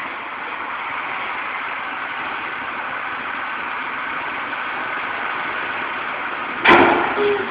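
Truck engine idling steadily. A sudden loud burst of noise cuts in near the end.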